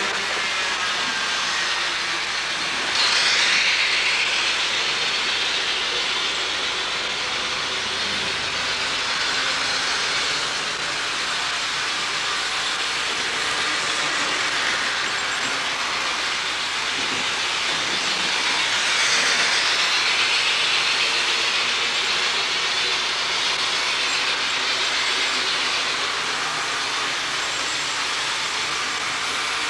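Model trains running on a layout: a steady whir of small electric motors and wheels rolling over the track, swelling louder twice as a train passes close by.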